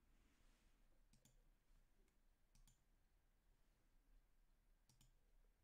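Near silence with three faint clicks of a computer mouse, spaced a second or more apart.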